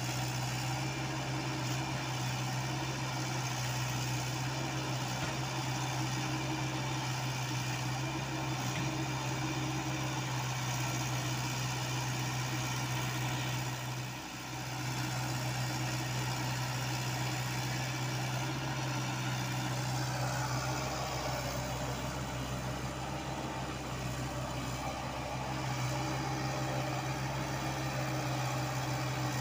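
Komatsu PC75UU mini excavator's diesel engine running steadily at a constant pitch, dipping briefly about halfway through.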